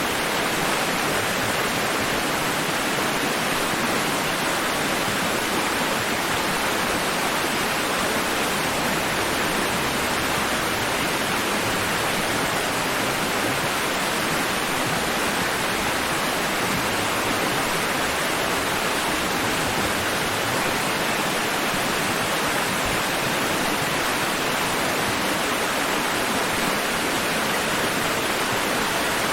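Steady rushing water, an even, unbroken hiss with no rise and fall of separate waves.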